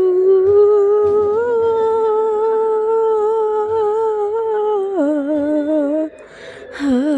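A voice humming long, slow held notes with a slight waver, stepping down in pitch about five seconds in, breaking off for a short breath near the end, then humming on.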